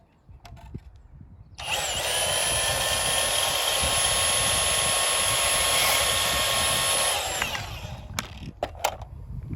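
Milwaukee portable band saw running and cutting through PVC pipe. It starts about a second and a half in with a steady whine, runs for about five and a half seconds, then winds down when released. A few light clicks and knocks follow.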